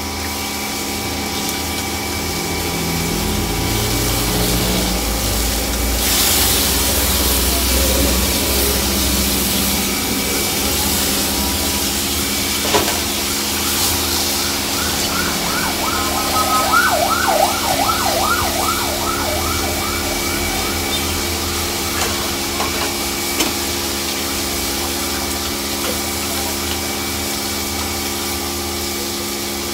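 Pork pieces deep-frying in a large wok of oil with a steady sizzle, over a steady machine-like hum with several whining tones. About halfway through, a quick run of short chirping strokes.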